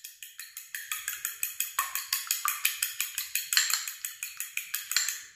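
Fork beating a raw egg in a small glass bowl, the tines clicking fast and evenly against the glass, about eight times a second. The clicking stops abruptly near the end.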